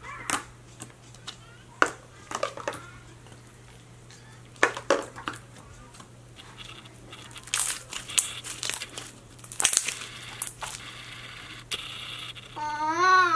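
Pink pearl slime being squished, folded and stretched by hand: irregular sticky pops, clicks and crackles as it is pressed and pulled apart. A short pitched cry is heard about a second before the end.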